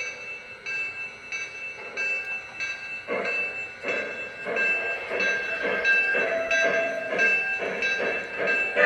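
Lionel Legacy 2-8-0 model steam locomotive running around the layout, its onboard sound system giving a rhythmic steam chuff over a steady high whine. The chuffing grows louder about three seconds in.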